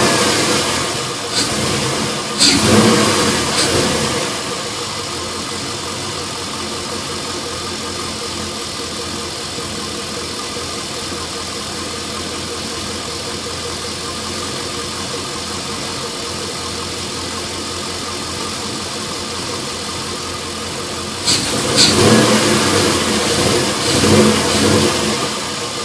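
LS1 5.7-litre V8 with aftermarket headers, blipped several times in the first few seconds, settling to a steady idle, then revved again a few times near the end. The idle is the rough idle that followed the intake, header and AIR/EGR-delete work, which the owner traced to a leak from a fitting left open after the AIR/EGR parts were removed.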